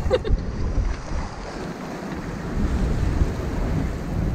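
Strong squall wind buffeting the microphone over the rush of sea and waves around a small sailboat under way. The gusts ease about a second in and build again about two and a half seconds in.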